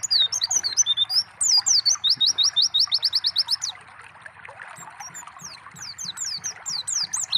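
White-eye (pleci) singing a busy run of sharp, high, falling whistled notes, with a fast trill of about a dozen notes in the middle. Under it runs the steady hiss of gently trickling water.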